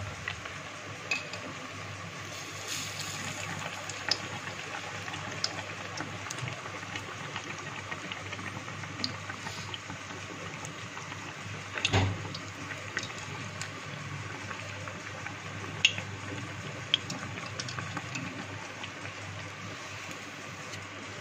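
Besan-battered bread pakora deep-frying in hot oil on a low flame: a steady sizzle with a few small pops, and one louder knock about twelve seconds in.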